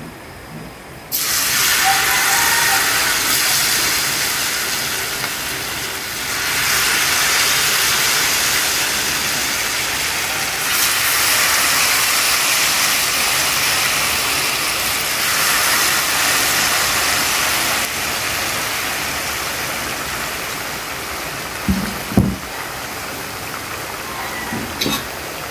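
Spoonfuls of sweet-leaf (pucuk manis) fritter batter dropping into hot oil in a frying pan and sizzling. The sizzle starts suddenly about a second in, swells again three times as more batter goes in, and eases off slowly. A few light knocks come near the end.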